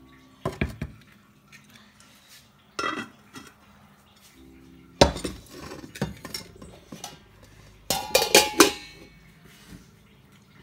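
Cookware clattering: a steel spoon and steel lids knocking against an iron kadai and clay pots in a few separate clinks. The last is a cluster of ringing clangs about eight seconds in.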